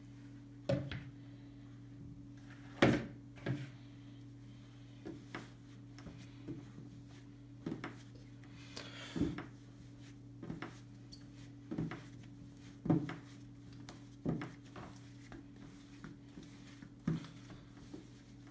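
Bread dough being kneaded by hand on a floured wooden table: soft thuds and knocks about once a second as it is pressed and folded, over a steady low hum.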